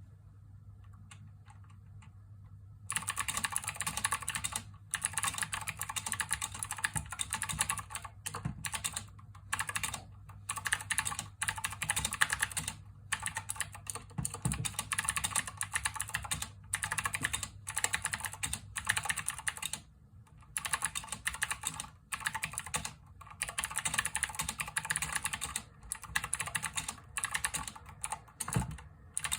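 Cooler Master CK550 V2 mechanical keyboard with clicky blue switches, typed on fast: a dense, continuous clatter of key clicks broken by short pauses. It begins about three seconds in, after a few faint clicks.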